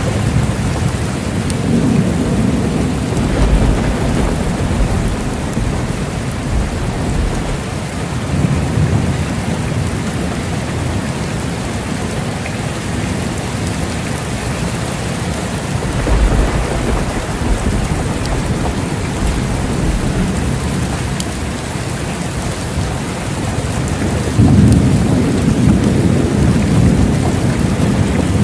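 Steady heavy rain falling, with low thunder rumbling in long swells, the loudest starting about four seconds before the end.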